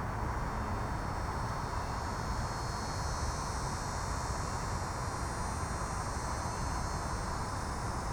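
Outdoor ambience: a steady low rumble, typical of distant road traffic, under a high, thin insect buzz that swells through the middle and fades near the end.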